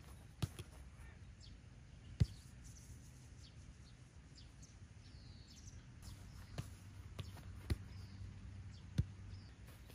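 Soccer ball touched and kicked on a grass field: a few sharp thuds, the loudest about two seconds in. Then a quiet stretch with faint bird chirps, and from about six and a half seconds on a series of lighter thuds of running feet and the ball.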